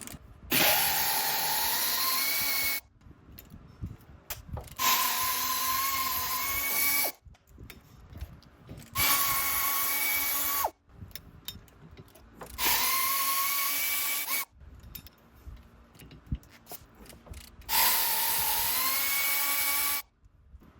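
Handheld power drill run in five bursts of about two seconds each. Each burst has a brief rising whine as the motor spins up, then holds a steady pitch.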